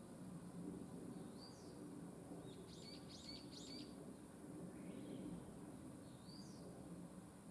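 Small birds chirping faintly: a single call, then a quick run of four or five high notes, then two more single calls, over a steady low background hush.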